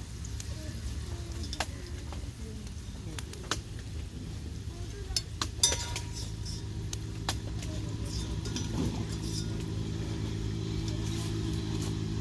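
Potato fries sizzling in hot oil while a metal utensil clinks against the pan as they are lifted out. From about halfway a motor vehicle engine's steady hum joins in.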